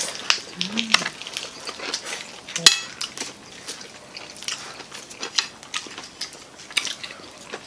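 Crispy fried chicken skin crackling and crunching as pieces are torn off and bitten, mixed with the sounds of eating and light clicks of chopsticks. One sharp click about two and a half seconds in is the loudest.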